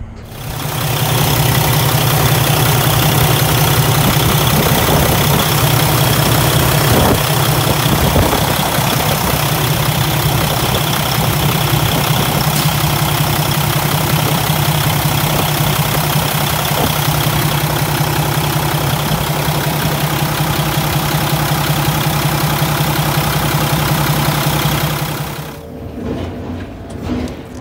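Kenworth T680 heavy-truck diesel engine idling steadily, heard up close in the open engine bay. It is run just after a new EGR flex pipe has been fitted, to listen for exhaust leaks.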